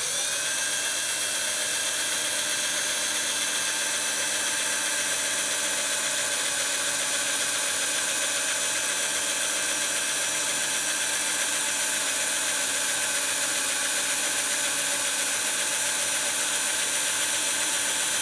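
Small electric drill running steadily, boring a hole in the metal of a vintage quick-release skewer with a dull bit, which makes the drilling slow. It spins up at the start and holds a constant speed.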